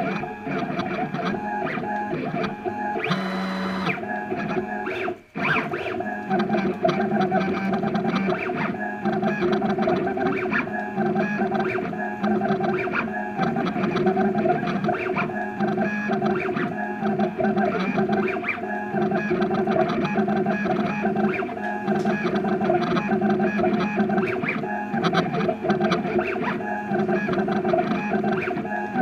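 Stepper motors of a home-built CNC router whining in shifting tones as the machine steers the tool along lettering, over a constant rattle from a GoPro camera shaking in its mount. The sound drops out briefly about five seconds in.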